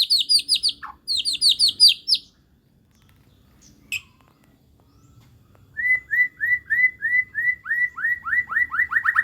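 White-rumped shama (murai batu) in full song, running through its repertoire: a fast run of repeated high down-slurred notes, a pause of about three seconds broken by one short note, then a lower repeated phrase that speeds up near the end.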